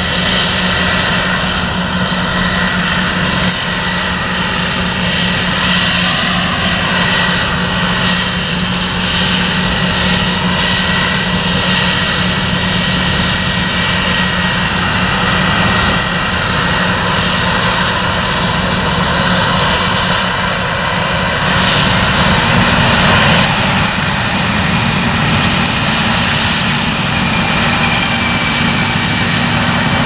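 Claas Lexion 770 combine harvester at work in wheat: a steady, unbroken drone of its engine and threshing machinery, with a thin high whine above it. The engine note steps slightly higher about two-thirds of the way through.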